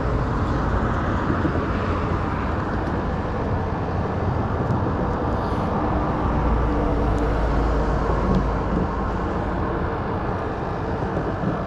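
Road traffic going by: a steady rush of tyres and engines, swelling as a vehicle passes about six seconds in.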